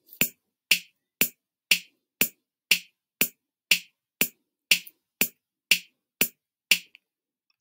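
BandLab drum machine's 808 kit playing a basic backbeat at 120 bpm: hi-hat on every beat, bass drum on beats one and three, snare on beats two and four, two hits a second. It stops about seven seconds in.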